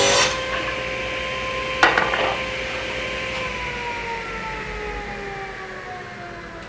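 Table saw after a cut, its blade and motor coasting down with a whine that slowly falls in pitch and fades. A single knock about two seconds in.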